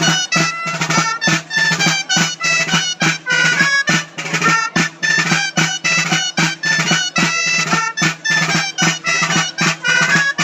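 Dolçaina and tabalet playing a lively ball de plaça dance tune: a bright, reedy melody over a drum keeping a steady beat of about three strokes a second.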